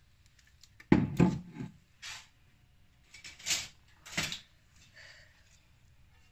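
Kitchen handling noises: a sharp knock about a second in with a few quick clatters after it, then two short swishing noises.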